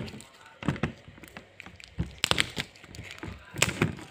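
Scattered taps and knocks of fingers picking at and peeling stickers off a wardrobe door, with a small cluster about halfway through.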